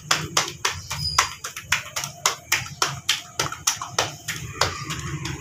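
Roti dough being slapped back and forth between bare palms to stretch it, about four slaps a second in an even rhythm, stopping near the end.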